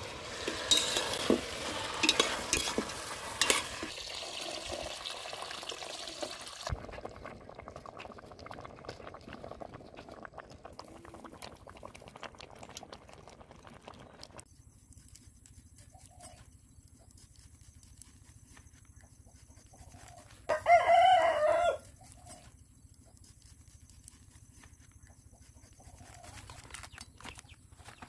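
Cooking noise from a pot steaming over a fire: a hissing, crackling stretch for the first several seconds that then dies down. About twenty seconds in, a rooster crows once, the loudest sound.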